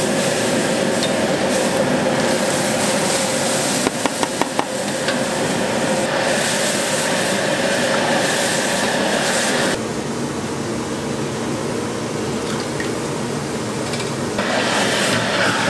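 Mapo tofu bubbling in a steel wok over a high gas burner, a steady rush of flame and sizzling sauce as a metal ladle stirs it. The ladle knocks against the wok several times about four seconds in, and the sound turns quieter and duller for a few seconds past the middle.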